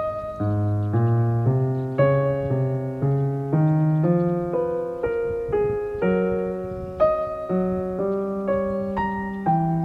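Soft piano background music: single notes struck about twice a second, each fading before the next.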